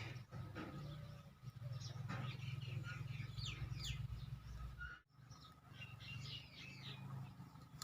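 Small birds chirping, with many short calls and quick falling notes, over a low steady hum. The sound cuts out for an instant about five seconds in.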